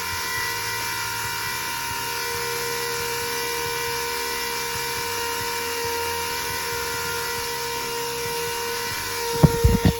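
Small liquid transfer pump running steadily with a constant whine, pumping RV antifreeze into a tractor tire as ballast. A few sharp knocks come near the end.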